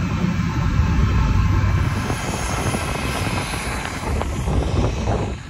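Gusty wind buffeting the microphone over the steady running noise of a parked Boeing 737-200 on the ramp, with a few faint clicks near the end.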